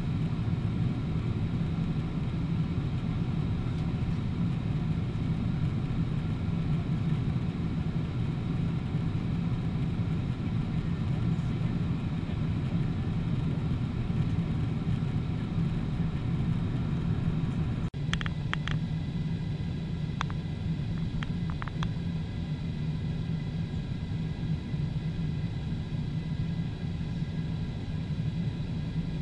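Steady low drone of a Boeing 777-300ER's cabin in cruise flight: engine and airflow noise heard from a window seat. A few faint clicks come a little past halfway.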